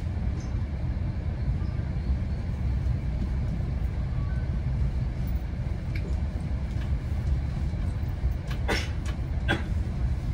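Steady low rumble of a GO Transit commuter train running along the track, heard from inside the coach, with two short sharp clicks near the end.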